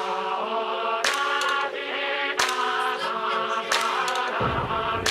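Electronic music track with sustained choir-like vocal chords and a sharp hit about every 1.3 seconds; a deep bass layer comes in near the end.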